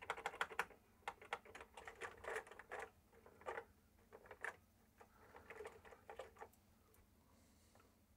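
Typing on an Acorn Atom computer's keyboard: quick runs of faint key clicks in uneven bursts, stopping for the last second or two.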